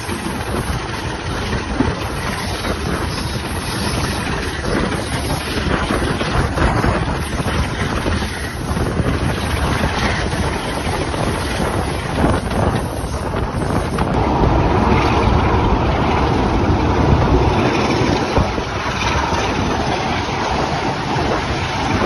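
Class 45 'Peak' diesel locomotive's Sulzer twelve-cylinder engine working hard, heard from the coach behind it at speed, mixed with train running noise and wind buffeting the microphone. The sound grows louder about two-thirds of the way through.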